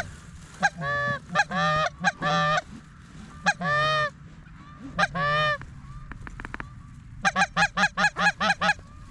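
Canada goose call blown by a hunter: five long, loud honks, then, from about seven seconds in, a fast run of short clucks at about five a second, calling to incoming geese.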